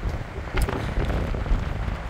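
Strong wind buffeting the microphone: a low, irregular rumble that rises and falls in gusts.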